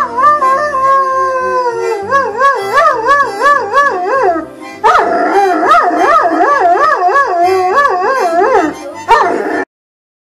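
A Saint Bernard howling along to a child playing a harmonica, with a boy howling with it; the howls waver rapidly up and down in long drawn-out runs, then cut off suddenly near the end.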